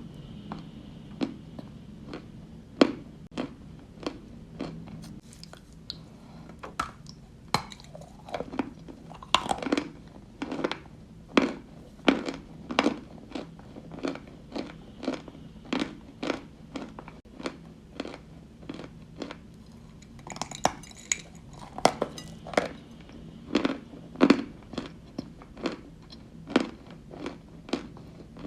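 Close-up crunching as white Turkestan edible chalk is bitten and chewed, a sharp crunch roughly every second.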